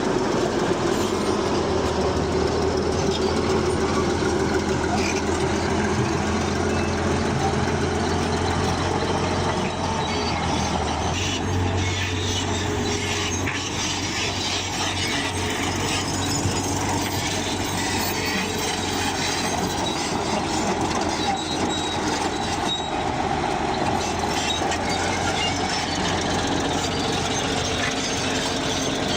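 Bulldozer at work: heavy diesel engine running steadily under the clank and squeal of its steel tracks. The engine note shifts about eleven seconds in.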